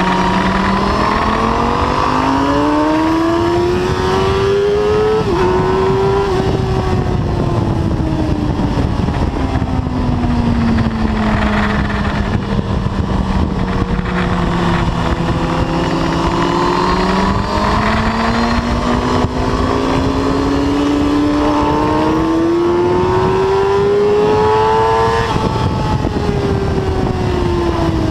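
Suzuki sportbike engine heard from on board at track speed, with wind rush. It revs up hard, upshifts about five seconds in, winds down slowly as the throttle is rolled off, then pulls up through the revs again, with another shift near the end before falling away.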